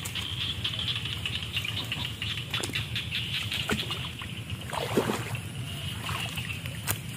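Water sloshing and splashing as a person wades into a shallow muddy pond, with a louder splash about five seconds in. A steady high-pitched hum runs behind it.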